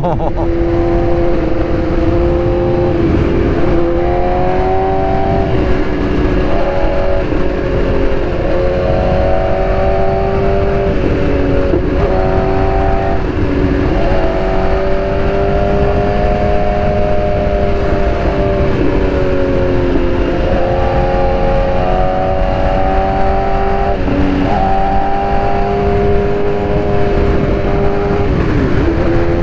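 Motorcycle engine running at road speed under a steady rush of wind noise. The engine note holds mostly steady and dips and rises again several times as the throttle is rolled off and back on.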